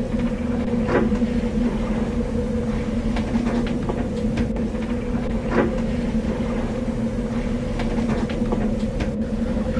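A boat's engine running with a steady drone, with scattered light clicks and creaks over it.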